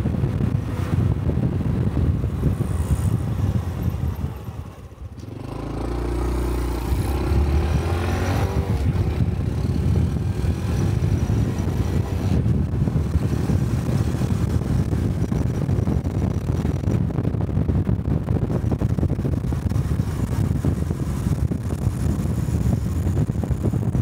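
A Honda Cub 125 motorcycle's single-cylinder engine running under way, with road and wind noise. About five seconds in the sound drops briefly as the bike slows, then the engine pitch rises as it accelerates away again.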